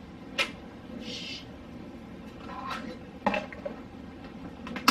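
Light clicks and knocks of food containers and jars being handled and set down on refrigerator shelves, with a brief rustle about a second in and a sharper click near the end.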